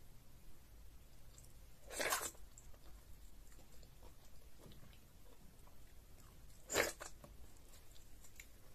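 Close-miked eating sounds of a person chewing fufu dipped in egusi soup: soft mouth noises, with two louder short bursts, one about two seconds in and another near seven seconds.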